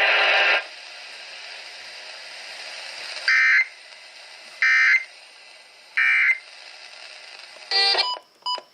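Emergency Alert System end-of-message signal: three short digital data bursts about a second apart, over faint broadcast hiss, closing a flash flood warning. A brief tone and a few short beeps follow near the end.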